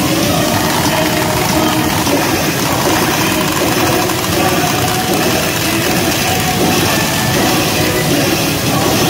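Loud, steady din of a pachinko parlor: the clatter and machine noise of many pachinko machines, with faint machine tunes mixed in.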